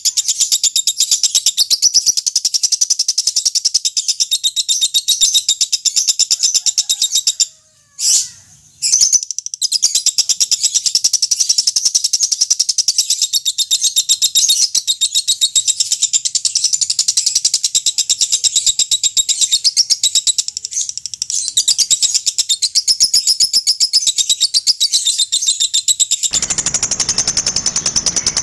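Lovebird giving a long ngekek: a loud, very rapid, high-pitched chattering trill that runs on almost without a break. It stops briefly about eight seconds in, and a hiss comes in under it near the end.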